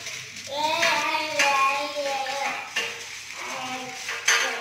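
Aluminium foil being handled off its roll and cut, crinkling, with a few sharp clicks, the sharpest near the end. A voice is heard over it in the first half.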